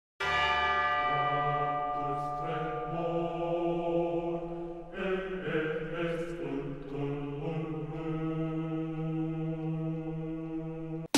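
Background music of long held chords with no beat, the chord changing about two and a half and five seconds in.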